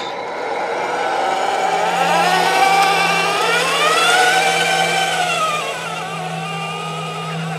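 Tamiya 1/14 Scania 770S RC truck pulling away, its running sound rising in pitch as it speeds up, holding, then falling back about two seconds later as it slows, over a steady low hum.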